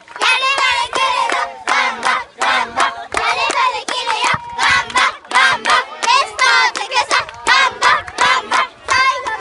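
Many children's high voices shouting and chanting together in short, regular phrases, like a group cheer or a call-and-response chant.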